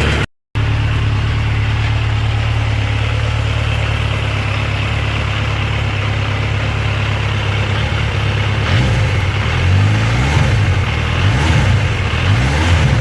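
Yamaha XJR1300 inline-four engine idling steadily. From about two-thirds of the way in, the throttle is blipped several times and the revs rise and fall.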